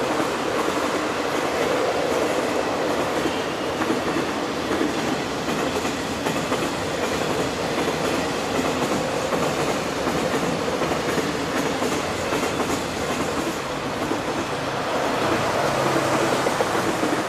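Freight train rolling past at a steady pace: a continuous rumble with the clickety-clack of wagon wheels over rail joints.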